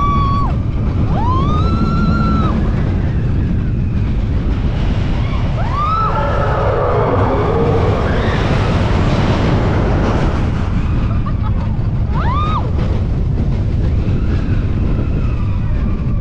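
Roller coaster ride: a steady heavy rumble of wind and the train running on the track, with riders screaming in long rising-and-falling cries several times, the last one short.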